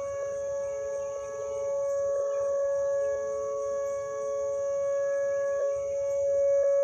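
Outdoor warning sirens sounding during a scheduled test, two steady pitches held close together, growing a little louder near the end.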